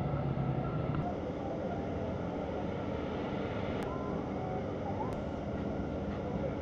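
Steady mechanical din of engines running in a motorcycle race paddock, with a low hum that cuts off about a second in and two faint clicks.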